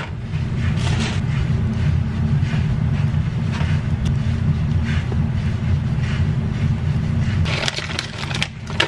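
Plastic food packaging rustling as a sandwich is put together, then, about a second before the end, a bag of kettle-cooked potato chips crinkling as chips are tipped out onto a paper plate. A steady low hum runs underneath.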